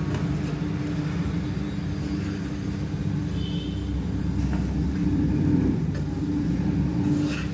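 Electric mixer grinder running steadily with a low rumble and hum as it churns jaggery pieces and grated coconut together.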